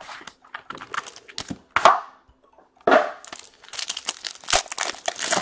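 Wrapping on a sealed hockey card box being torn open and crinkled. There are irregular crackles, with sharper tears about two and three seconds in, and denser crinkling near the end.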